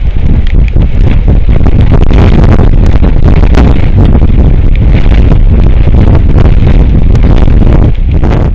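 Strong wind buffeting an outdoor microphone: a loud, continuous low rumble with crackling gusts.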